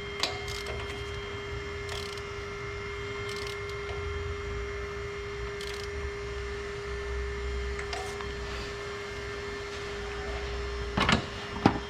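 Scattered clicks and knocks of hand tools, a socket and extension, as spark plugs are run down and seated in the cylinder head, with a louder pair of knocks near the end, over a steady hum.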